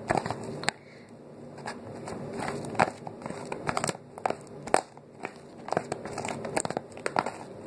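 Homemade slime being squished and stretched between the hands, making irregular wet clicks and pops.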